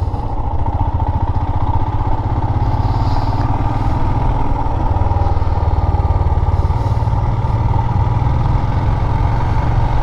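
Royal Enfield Himalayan's single-cylinder engine running steadily, without a hiccup.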